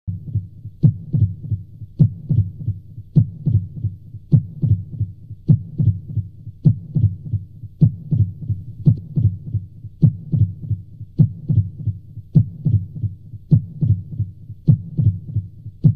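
Slow heartbeat sound effect: a low, steady pulse of about one strong beat a second, each followed by a few softer beats.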